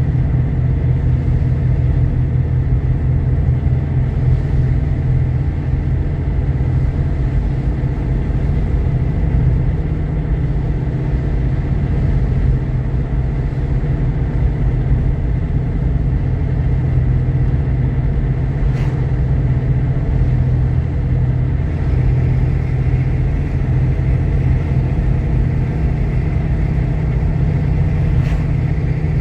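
Jeep Grand Cherokee with a 3.7-litre V6 driving: a steady low engine and road rumble heard inside the cabin. Two brief clicks stand out, one past the middle and one near the end.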